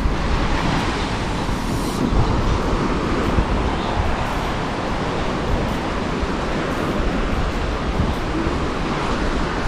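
Steady rumbling wash of wind and sea surf, with wind buffeting the microphone.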